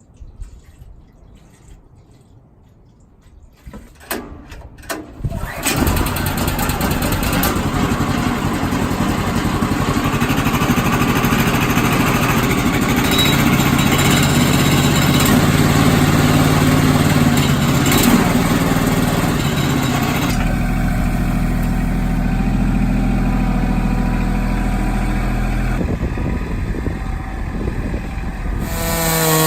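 Small gasoline engine of a Woodland Mills HM130 portable bandsaw mill starting. A few short sharp sounds come first, then it catches about five seconds in and runs steadily, its sound shifting about twenty seconds in.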